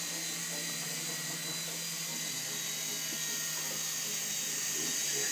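Small electric toy helicopter's motors and rotor blades whirring steadily in flight: a high whine over a low steady hum, growing slightly louder near the end.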